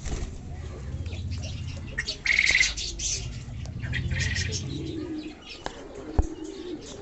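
A flock of fancy pigeons cooing, with short flurries of wing flapping. The low cooing stands out in the last couple of seconds.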